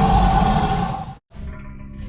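Designed dinosaur roar sound effect built from layered animal recordings: a loud, sustained roar with a held tone cuts off about a second in, and after a brief silence a quieter low rumble follows.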